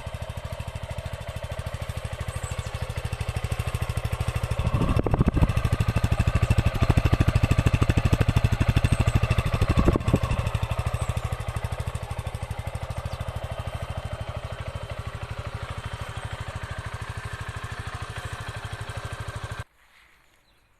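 Motron Revolver 125 motorcycle engine idling with an even pulse. It runs louder for several seconds about a quarter of the way in, settles back to idle, and cuts off suddenly about a second before the end as the engine is switched off.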